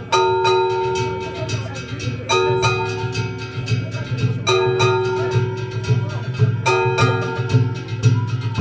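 Festival float music (hayashi): a metal gong or bell struck about every two seconds and left ringing, over rapid small percussion strokes and steady drumming.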